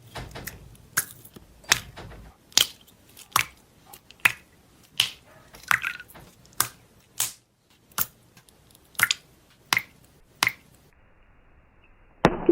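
Slime being pressed and poked, letting out sharp air-pocket pops and clicks, roughly one a second.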